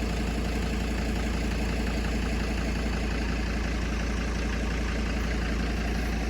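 Farm tractor engine running steadily at a constant pitch and level, likely at idle.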